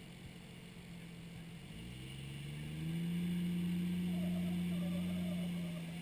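Off-road Jeep's engine working under load while crawling up rock ledges: softer at first, then the revs rise about two seconds in and hold steady and louder.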